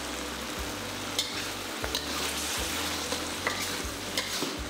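King oyster mushrooms sizzling in a hot pan as they are stir-fried in their sauce, which is being cooked down until it thickens. A spatula clicks and scrapes against the pan several times.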